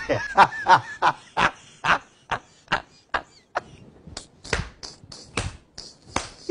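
A man laughing, then clapping his hands in a steady run of sharp claps, about two a second.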